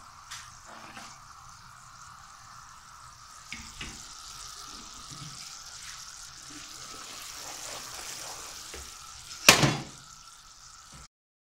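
Sugar syrup for zarda boiling hard in a non-stick pan, a steady bubbling sizzle with a few small clicks. About nine and a half seconds in, the spatula knocks once loudly against the pan, and the sound cuts off near the end.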